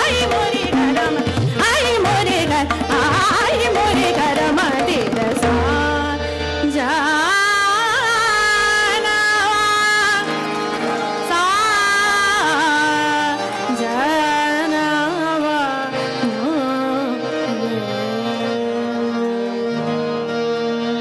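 Hindustani classical vocal in raga Rageshree: a woman sings long, gliding notes over a steady tanpura drone, with harmonium and tabla accompaniment. The tabla plays busily for the first several seconds. The voice then holds long notes, and the music turns softer near the end.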